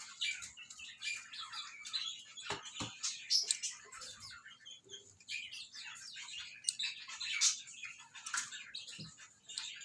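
Budgerigars chirping and chattering continuously in quick, high warbled notes, with a few soft knocks in between.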